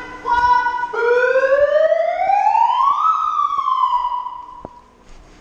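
A siren wails, rising in pitch over about two seconds, then falling and fading out. It is the start signal for the round, sounded after the countdown.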